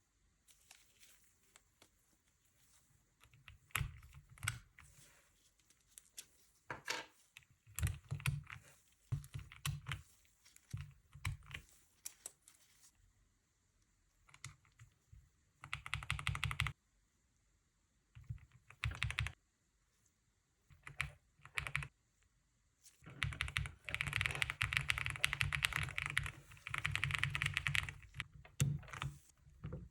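Monsgeek M1 V5 VIA mechanical keyboard being typed on. A few seconds in, short runs of keystrokes begin, separated by pauses, then a long run of fast, continuous typing near the end.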